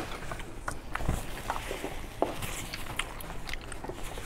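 Soft chewing of a mouthful of food, with scattered small clicks.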